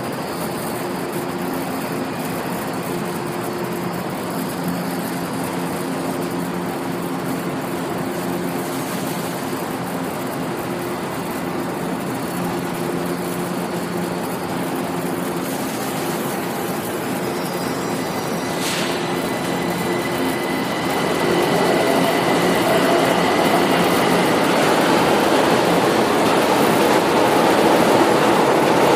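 São Paulo Metro Line 1 train standing at the platform with a steady low hum, then pulling out: about two-thirds of the way in, after a click and a short high tone, the noise swells and a rising motor whine joins it as the train accelerates away.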